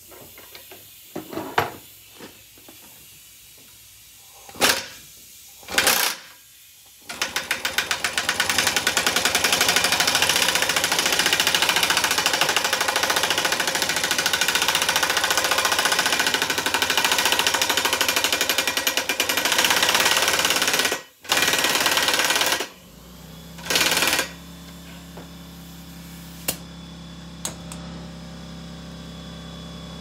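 Pneumatic impact wrench turning the screw of a ball joint press, forcing a U-joint bearing cap into a driveshaft yoke. It gives a few short bursts, then about fourteen seconds of steady rapid hammering, and two more short bursts. A steady low hum follows near the end.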